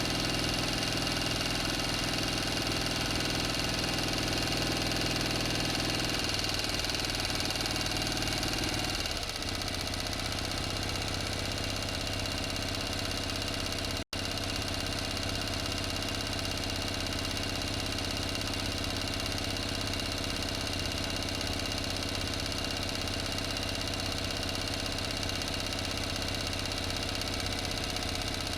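Motor engine running steadily at idle. Its low tone shifts and it gets slightly quieter about a third of the way in, and the sound cuts out for an instant about halfway through.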